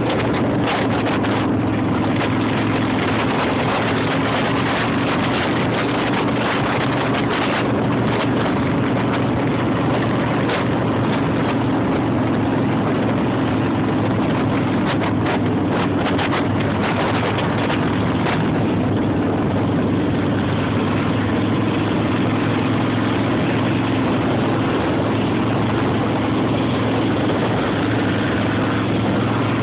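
Engine holding a steady cruising speed, a constant drone with no change in pitch, under heavy wind rush and road noise on a microphone moving at road speed.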